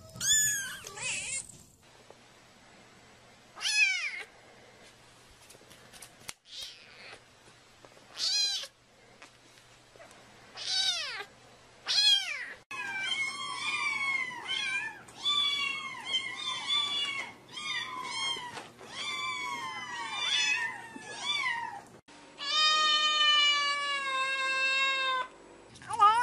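Kittens meowing: single high mews that drop in pitch, a few seconds apart at first, then several kittens mewing over one another in quick succession, and near the end one long, steady, drawn-out cry.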